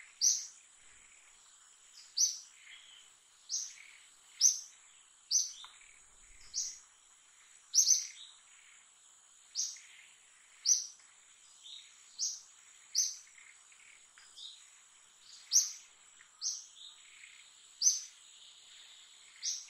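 A bird calling with short, sharp, high chirps about once a second at an uneven pace, over a steady high-pitched insect drone.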